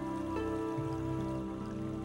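Instrumental background music of slow, held notes that change every half second or so.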